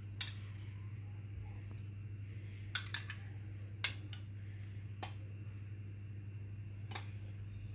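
Metal spoon clinking against glass bowls as diced mango is spooned into a glass of custard: about seven light clinks, three in quick succession near the middle. A steady low hum runs underneath.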